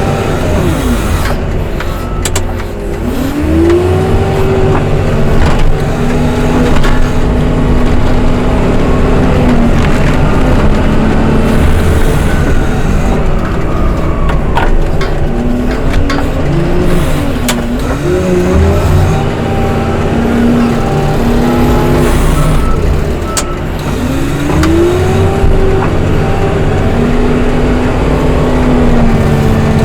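Snow-clearing machine's engine running, revving up and settling back several times, with a steady hum between the revs.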